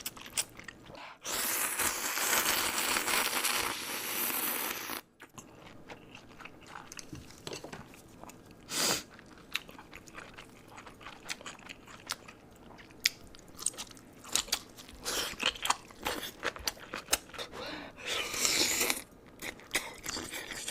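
Close-miked eating: crunching and chewing of food with many small mouth clicks, and a longer loud crunching stretch about a second in.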